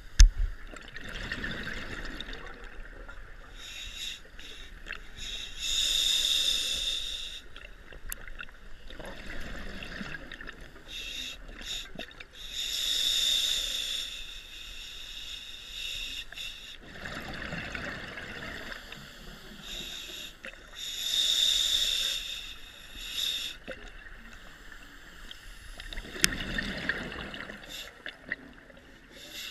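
Scuba diver breathing through a regulator underwater: slow, regular breaths about every seven to eight seconds, each a rush of air through the demand valve followed by bubbling exhaust. A single sharp knock right at the start.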